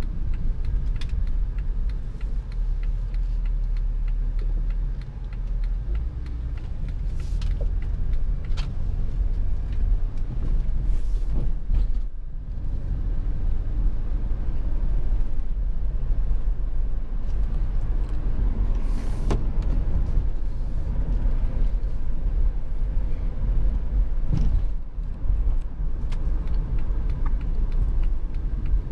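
2004 Chrysler Town and Country minivan running, a steady low rumble of engine and road noise with a few short clicks and knocks scattered over it.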